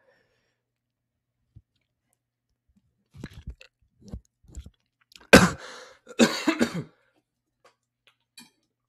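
A person drinking water close to the microphone, with a few soft swallowing sounds a little after three seconds in. Louder coughing and throat clearing follow, the loudest sudden sound about five seconds in.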